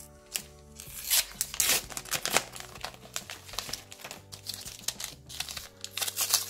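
Chocolate block's paper sleeve and foil wrapper being pulled off and torn open by hand: a run of sharp crinkles and rips starting about a second in, loudest soon after, continuing in smaller bursts.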